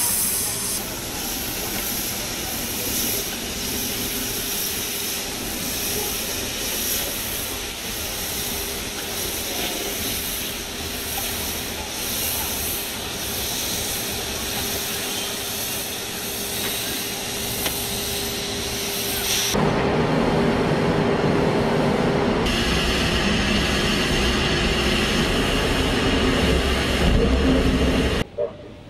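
Small Cuban sugar-mill steam locomotive working: a steady hiss of steam with a slow, regular beat and a held steady tone. About twenty seconds in the sound turns louder and heavier.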